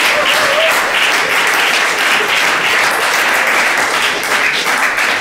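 Audience applauding steadily, dense clapping from a full room.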